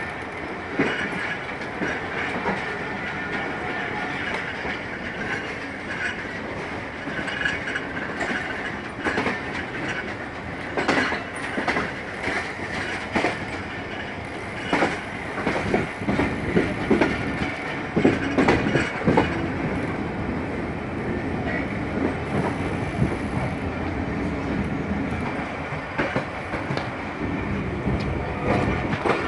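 Passenger coach's wheels running over jointed track and yard pointwork: a steady rolling rumble broken by irregular clacks, which come thickest about halfway through.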